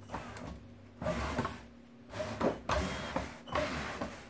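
Electric drive motors of a homemade remote-control power-wheelchair-base vehicle whining in several short bursts as it is driven and turned on carpet.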